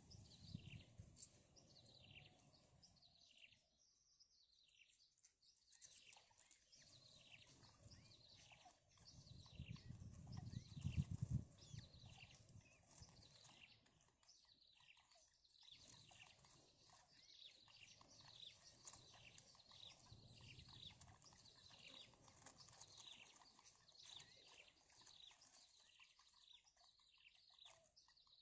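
Small birds chirping: a quick, steady series of short, high, downward-sliding chirps, faint. A low rumble about ten seconds in.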